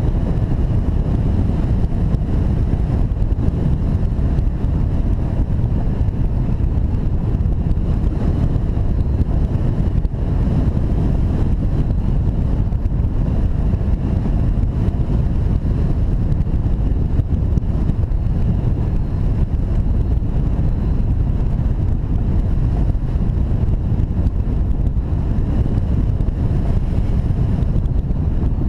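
Steady rumble of wind noise from the airflow rushing over a glider-mounted camera's microphone during hang glider flight.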